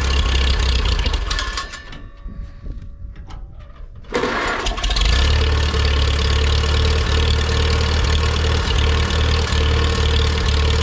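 Farmall B tractor's four-cylinder gasoline engine starting after a new ignition resistor was fitted. It runs, sags and nearly dies about two seconds in, catches again about four seconds in, and then runs steadily.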